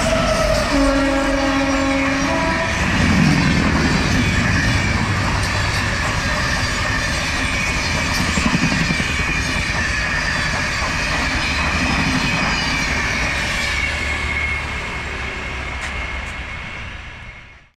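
WAP-7 electric locomotive's horn sounding for the first couple of seconds as it passes close by, then the steady rumble and clickety-clack of an express train's passenger coaches rolling past at speed, with a high whine from the wheels. The sound fades out near the end.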